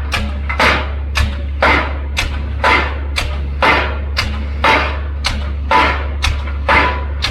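Pile driver hammering a pile: sharp metallic blows about twice a second, alternating louder and softer, over a steady low engine drone.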